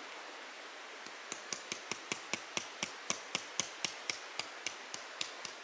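A hammer striking in a quick even run of about four blows a second, starting about a second in and stopping near the end, as when driving a tent peg into the ground. A steady hiss of running water or wind lies underneath.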